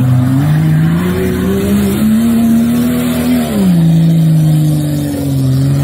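Off-road SUV engine revving, its pitch climbing over the first two seconds, holding, then dropping about three and a half seconds in and staying lower.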